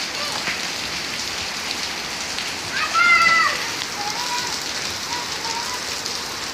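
Steady rain falling on wet concrete pavement, with a child's short high-pitched shout about three seconds in.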